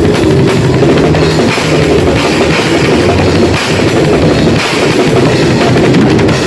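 Grindcore band playing loud and dense, its drum kit pounding with bass drum and cymbals under the full band.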